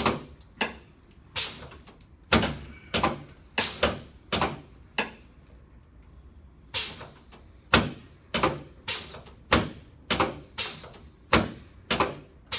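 A run of sharp, hard knocks about one and a half times a second, each with a short ringing tail, falling into two runs with a pause of about two seconds midway. The knocks come from chiropractic adjusting equipment working on a patient lying on his back.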